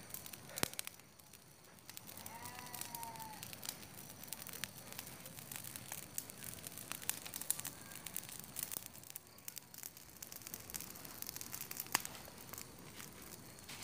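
Continuous fine crackling and rustling of dry leaves and twigs, from a fire burning dry weeds and steps through thick leaf litter, with a few sharper cracks.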